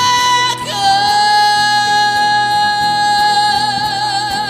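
Recorded Korean ballad: a singer holds one long high note over soft accompaniment. The note slides down a step under a second in and takes on vibrato near the end.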